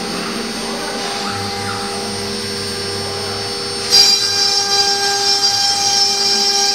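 Twin spindles of a CNC router whining steadily while cutting MDF. About four seconds in the cutting noise gets louder and harsher, with a higher hiss over the whine.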